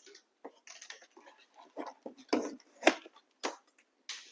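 Scattered rustles, clicks and knocks of packaging being handled while unboxing a refrigerator, the two loudest knocks about two and a half and three seconds in.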